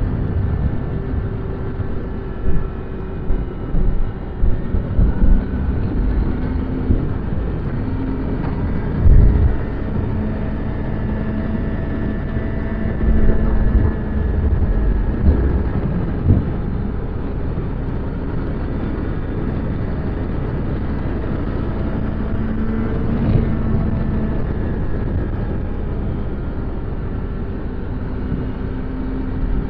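Stock exhaust of a Yamaha XJ6 Diversion F's 600 cc inline-four, heard from the bike while riding. The engine note rises and falls as the rider speeds up and eases off, with low rumbling thumps in the first ten seconds.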